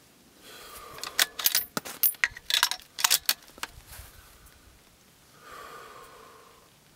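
Metallic jangling and clinking: a quick run of sharp rattles lasting about three seconds, starting about a second in.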